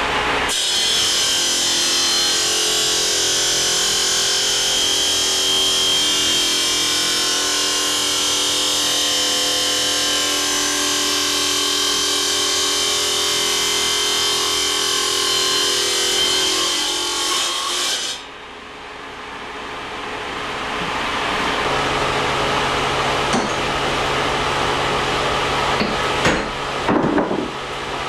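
Bench-mounted diamond-blade core saw cutting through rock drill core, a loud steady grinding with a high ringing tone. The cut stops abruptly about 18 seconds in, leaving a quieter running hum, with a few knocks near the end.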